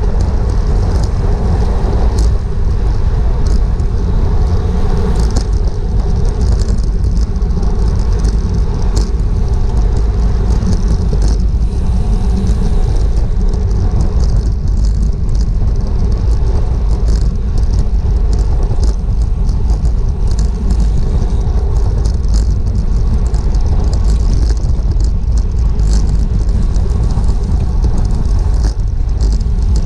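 Wind rushing over the microphone of a GoPro mounted on a racing bicycle at speed: a loud, steady low rumble, with scattered sharp ticks and clicks through it.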